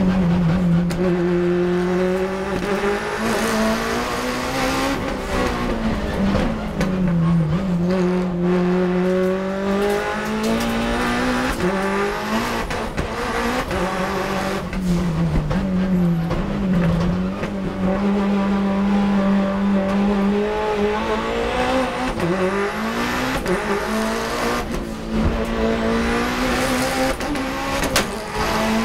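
Racing car engine heard from inside the cockpit at high revs, its pitch climbing through each gear and dropping sharply at the shifts and under braking, over and over through the run, with a few short sharp cracks.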